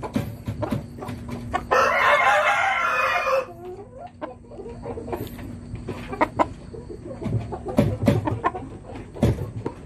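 A rooster crows once, about two seconds in, for under two seconds. A run of short, sharp taps and clicks follows.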